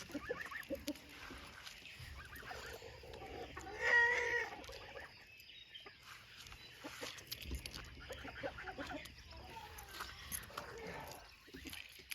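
Chickens clucking, with scattered short calls throughout. One louder, wavering animal call comes about four seconds in.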